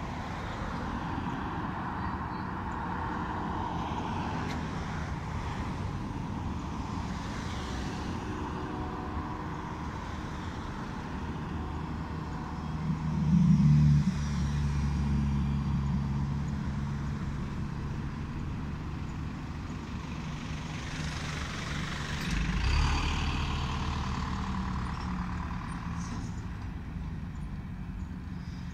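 Road traffic driving by: cars and light trucks passing on a street, with a steady engine hum. Two vehicles pass louder, about 13 seconds in and again around 22 seconds.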